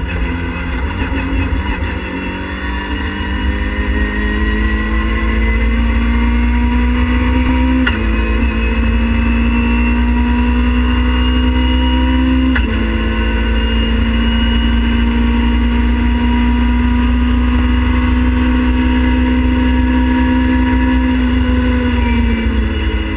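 Race car engine heard from inside the cabin, pulling hard at full throttle with the revs climbing steadily. It shifts up twice, from third to fourth about 8 seconds in and to fifth about 12 seconds in, each time with a sharp drop in pitch. It then holds high revs until easing off just before the end.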